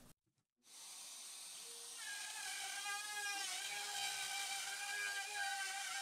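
Handheld wood router with a bearing-guided pattern (copy) bit running and cutting along a template: a steady high-pitched whine that starts about half a second in and grows louder about two seconds in, its pitch wavering slightly as the bit takes the cut.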